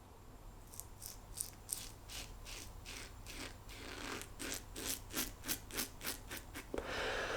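Quad-edge safety razor with a double-edge blade scraping through lathered beard stubble in a run of short, rasping strokes, coming faster after about four seconds. A steadier hiss follows near the end.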